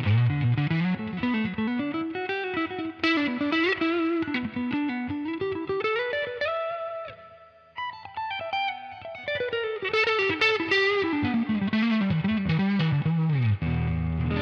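Electric guitar (Fender Stratocaster) played through a UAFX Dream 65 Reverb amp pedal: a run of quick single notes climbing up the neck, a brief pause halfway, then running back down and ending on a held low chord.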